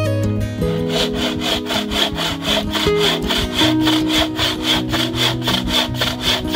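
Wooden frame saw (bucksaw) cutting through a dead branch in quick, even back-and-forth strokes, starting just under a second in, over acoustic guitar music.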